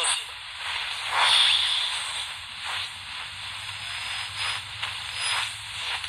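Shortwave static from an Atlanfa portable world-band radio's speaker as its dial is tuned between stations: steady hiss with a faint hum, broken by several brief whooshing sweeps as the tuning passes over signals.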